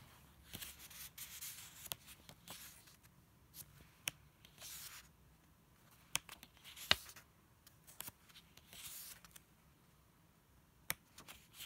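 Pages of a paper photobook being turned by hand: soft rustling and sliding of paper, with several sharp clicks, the loudest a little past halfway.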